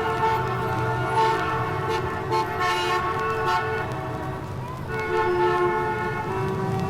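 Vehicle horns blowing long, steady tones that sound together as a chord. The sound falters with a short dip in pitch near five seconds, then horns hold again.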